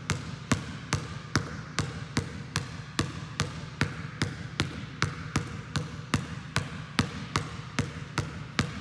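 Basketball bouncing on a hard gym floor in a steady, even rhythm, about two to three bounces a second, as it is dribbled one-handed front to back in a V dribble.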